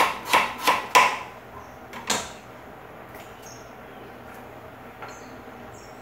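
Kitchen knife chopping a peach palm heart on a cutting board: four quick cuts in the first second, one more about two seconds in, then only faint light clicks.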